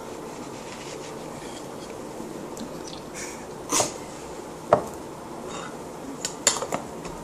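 Spoon scraping and knocking in a metal Milo tin: a short scrape a little before halfway, a sharp knock about a second later, then a quick run of clicks near the end.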